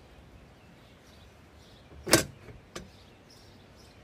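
A sharp knock about two seconds in, then a lighter click, from the cross bar and its mounting hardware being handled against the roof rail.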